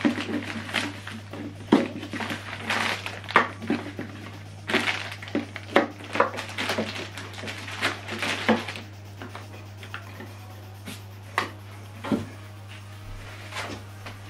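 Plastic packaging bags crinkling and rustling as bagged cables and accessories are handled, with light knocks of parts set down on a table. Busy for the first eight or nine seconds, then only a few scattered clicks.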